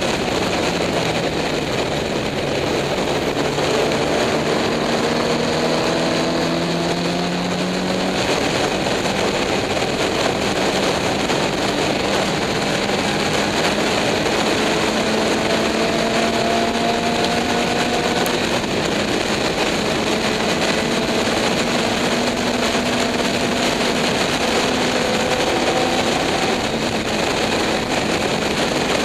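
Race car engine under hard acceleration, heard from an onboard camera: its pitch climbs steadily through each gear and drops back at the upshifts, several times over. Heavy wind rush runs under it the whole time.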